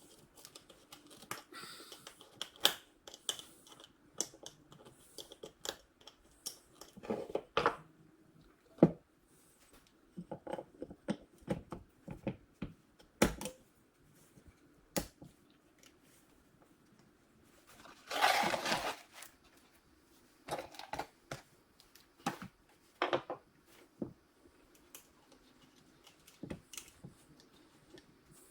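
Small parts and hand tools being handled on a workbench during an alternator teardown: scattered clicks and light knocks, with a louder noisy burst about a second long roughly two-thirds of the way through.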